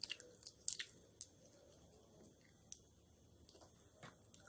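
Peanuts being shelled by hand: faint, sharp cracks and clicks of the shells splitting between the fingers, several close together in the first second or so, then one more about two seconds later and another near the end.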